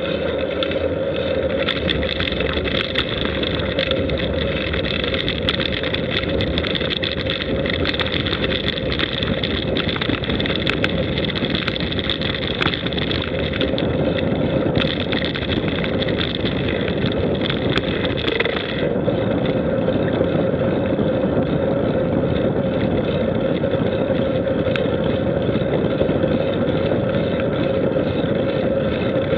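Steady travel noise from a camera riding on a moving vehicle: wind on the microphone and road rumble over a constant hum, with scattered light ticks. The high hiss drops suddenly about 19 seconds in.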